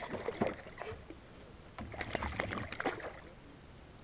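A small hooked northern pike thrashing and splashing at the water's surface beside a kayak as it is reeled in, in two bouts of splashing, the second about two seconds in.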